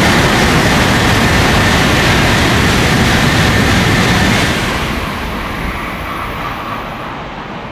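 N700-series Shinkansen 16-car train passing at high speed, a loud rushing of air and wheels on rail that begins to fade about four and a half seconds in as the train draws away.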